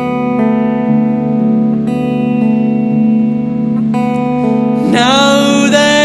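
Clean electric guitar playing sustained chords through a small combo amp, a new chord about every two seconds. A man's singing voice comes in about five seconds in, sliding up into its first note.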